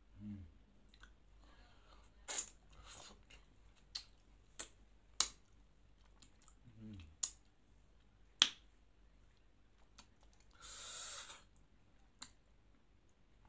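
Close-up mouth sounds of eating a chocolate-coated Magnum ice cream bar with Nutella: sharp, separate lip-smacking clicks while chewing, two short low "mm" hums, and a brief breathy hiss a couple of seconds before the end.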